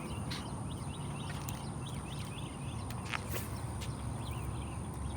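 Outdoor wildlife chirping: a steady run of short, quick chirps, about two to three a second, over a thin steady high whine. A few sharp clicks cut in, the loudest about three seconds in.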